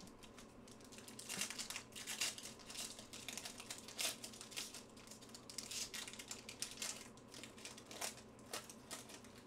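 A foil pack of 2021 Panini Chronicles Draft Picks football cards torn open by hand, its wrapper crinkling irregularly from about a second in.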